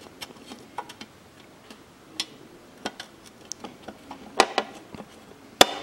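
Scattered light clicks and taps of a bent painted wire rod being worked into the plastic hinge of a car's fuel filler door, with two sharper clicks in the last second and a half.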